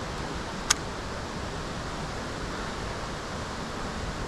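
Steady outdoor hiss of wind and water, with one short sharp click about a second in.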